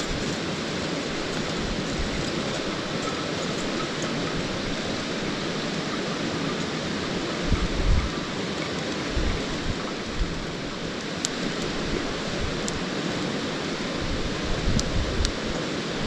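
Steady rushing of a stream over a rocky bed. A few sharp crackles from the wood fire in the stove come in the second half.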